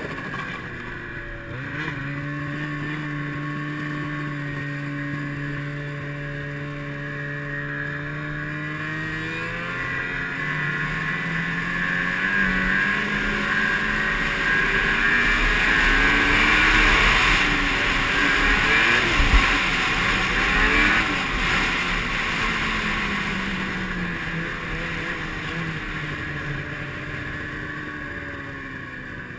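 Snowmobile engine under way: running at a steady pitch at first, then rising in pitch as the sled speeds up, loudest a little past the middle, and falling again as it slows toward the end, over a steady rushing noise.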